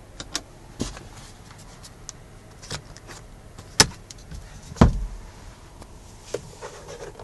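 Scattered plastic clicks and knocks of car interior trim being handled: the overhead map-light switch pressed and the sun visor moved. Two louder knocks come about four and five seconds in, the second with a dull thump.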